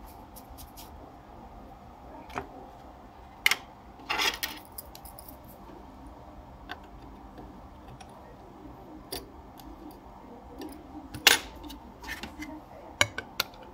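Handling noise on an opened CD player mechanism: a disc being lifted off the spindle and a small screwdriver at the laser board, heard as sparse sharp clicks and a brief rattle. The loudest click comes near the end.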